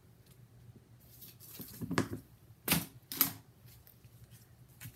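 Black adhesive tape peeled off its roll with a short rasping pull, then a few sharp clicks and snaps as the long strip is handled.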